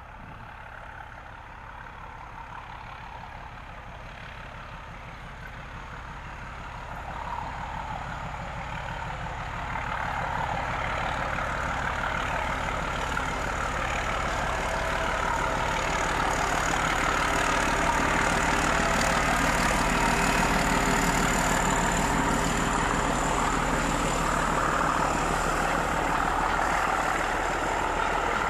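Heritage train on the North Norfolk Railway approaching and drawing level. Its engine and running noise grow steadily louder over the first half, then stay loud as it passes close by.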